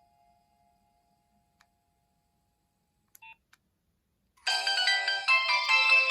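The last note of a Nokia 2600 ringtone dies away, followed by a pause and a short beep. About four and a half seconds in, the next built-in ringtone starts suddenly: a busy electronic tune with several notes sounding at once.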